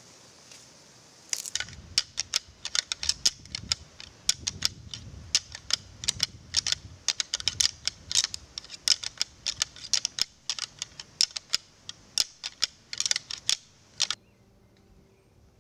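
A pair of deer antlers rattled together by hand: rapid, irregular clacks and grinding starting about a second in and stopping suddenly near the end. This is antler rattling, the hunter's imitation of two bucks sparring.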